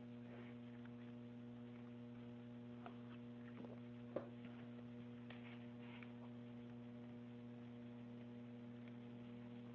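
Low, steady electrical mains hum on the recording line, with a few faint clicks, the clearest about four seconds in.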